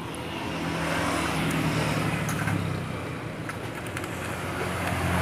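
Motor vehicle engine running, with a low hum that slowly shifts in pitch under road noise, swelling about two seconds in and again near the end.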